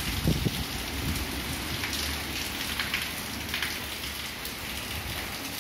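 Heavy cyclone rain falling steadily in a dense, even hiss. A brief low thumping comes about half a second in.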